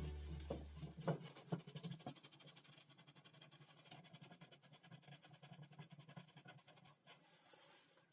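A few faint sharp clicks or knocks in the first two seconds, then faint scratching.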